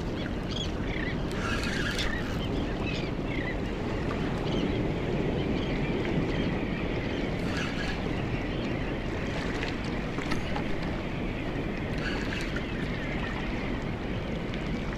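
Steady rush of wind and surf, with wind buffeting the microphone.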